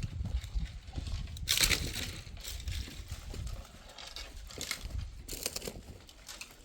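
Irregular crunching and crackling, with two louder rustling bursts, about one and a half and five seconds in, over a low rumble.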